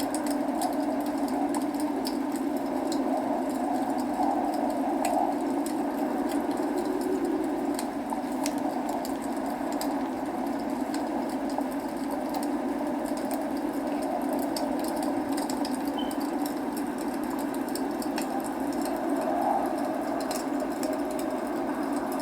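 Log fire in a fireplace crackling, with scattered small pops and snaps over a steady rush of rain.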